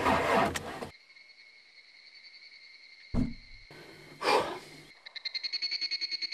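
Music cuts off abruptly about a second in, leaving crickets or similar insects chirping in a steady high trill. There is a thump about three seconds in and a brief rustle a second later. From about five seconds, frogs begin croaking in fast, even pulses over the insects.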